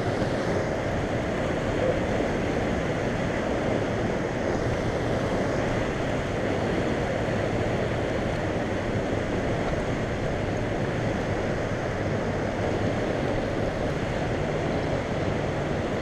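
Steady rushing noise of turbulent dam tailwater around the boat, mixed with wind buffeting the microphone.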